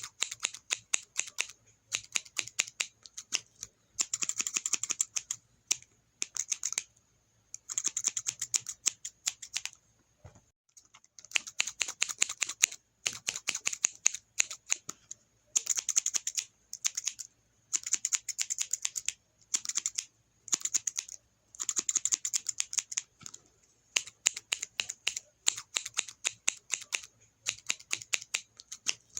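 Scissors snipping in quick runs of many rapid, crisp snips, each run lasting a second or two, with short pauses between runs.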